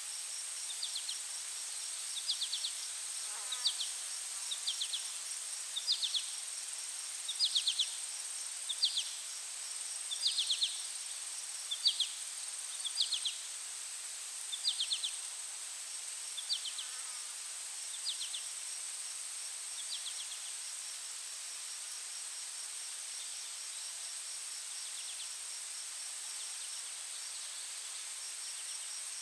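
Forest insect ambience: a steady high-pitched buzz with a fast ticking, and over it short chirps of several quick strokes every second or two that fade out about twenty seconds in.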